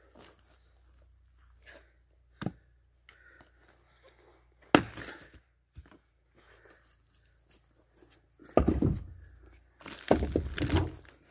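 Axe work on split pine firewood at a chopping stump: a sharp wooden knock about two seconds in and a louder one just before five seconds. Near the end come heavy footsteps crunching over bark and twigs close by.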